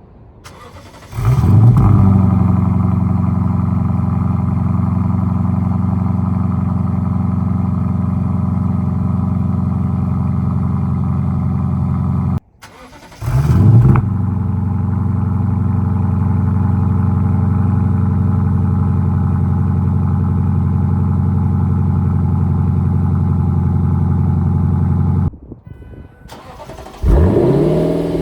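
Lexus LC 500's V8 with a Power Craft Japan aftermarket exhaust started three times, each start a quick rev flare that settles into a steady, deep idle. The two long idles each stop abruptly, and the last start comes near the end.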